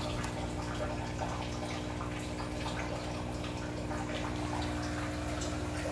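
Electric aquarium air pump humming steadily, with air bubbling and trickling in water, and a sharp tap at the start followed by light clicks of plastic tubs being handled.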